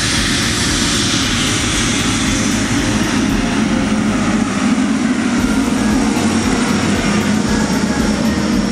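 Jet engine noise from a Boeing 777-300ER's GE90-115B turbofans as the airliner rolls past on the runway, steady throughout, with the low rumble growing stronger about halfway through.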